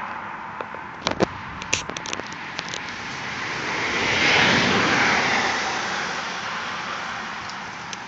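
A road vehicle passing by, its noise swelling to a peak about halfway through and then fading away. A few sharp clicks come in the first three seconds.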